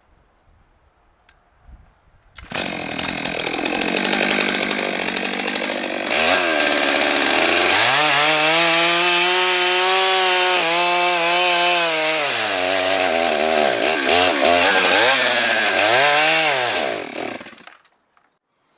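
Stihl MS 661 C-M 91 cc two-stroke chainsaw cutting through a log at full throttle, its engine pitch sagging and recovering under load. Near the end it surges unevenly and dies, out of gas.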